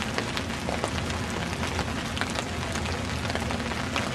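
Steady rain falling, with many separate drop hits sounding close by. A steady low rumble runs underneath.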